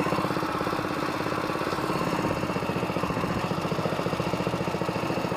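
Longtail mud motor's small gas engine idling steadily, with an even, rapid firing beat. Its throttle cable has come loose and needs tensioning.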